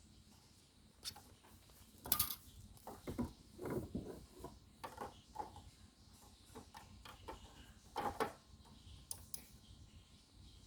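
Irregular clicks, taps and rustles of an object being handled, loudest about two seconds in and again about eight seconds in.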